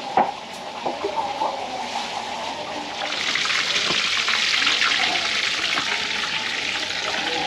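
Water running from a kitchen tap into a sink, a steady rushing hiss that swells in about three seconds in and keeps running.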